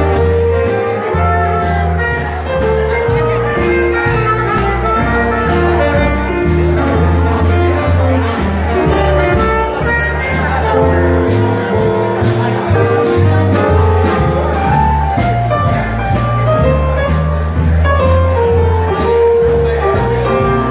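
Live small jazz band playing an upbeat swing number: keyboard and drum kit, with the cymbals keeping a steady beat over a low bass line.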